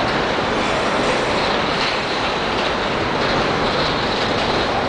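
Empty covered hopper freight cars rolling past, a steady noise of their steel wheels running on the rails.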